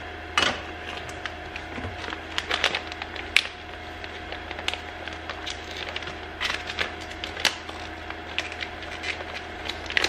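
Scattered small clicks and knocks of parts being handled, the loudest about half a second in and about three and a half seconds in, over a steady low hum.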